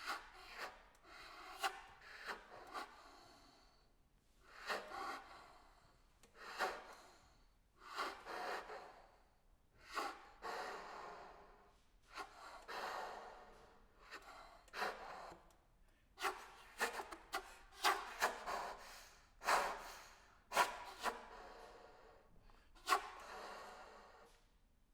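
Saxophone played with extended techniques: short breathy, rasping bursts of air through the horn, some with a faint pitch and sharp attacks, about a dozen phrases separated by brief pauses, growing denser in the second half.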